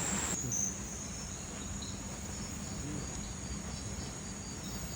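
Insects trilling in a steady high-pitched drone, with a few brief chirps over it.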